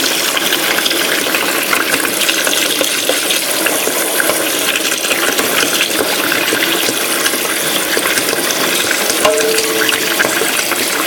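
Tap water running steadily and splashing, used to rinse plush toys.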